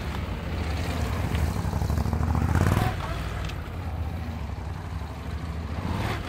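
Motorcycle engine running at low speed through tight turns, growing louder to a peak between two and three seconds in, then dropping back and running steadily.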